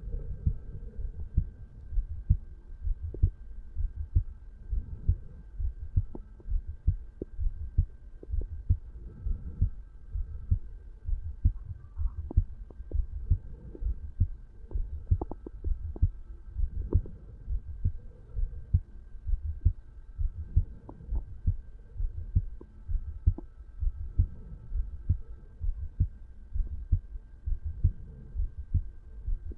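Human heartbeat heard at the mitral valve area of a resting adult, a steady, regular run of low lub-dub beats.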